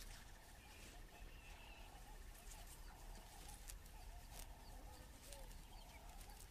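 Faint outdoor night ambience: a bird calling over and over in soft, low notes, about two a second, with a few faint clicks.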